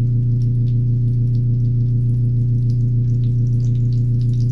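A loud, steady low electrical hum with faint crackling from food frying in a pan.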